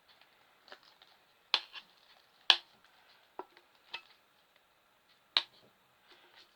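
A spoon clicking and tapping against a bowl as sticky slime is scraped into it: about seven sharp, irregular clicks, the loudest about two and a half seconds in.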